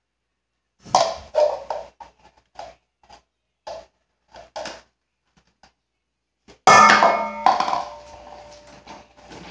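Dishes and kitchenware being handled: a series of light knocks and clinks as items are lifted and set down, then a loud clatter about seven seconds in that rings on for a moment, like metal or crockery being put away.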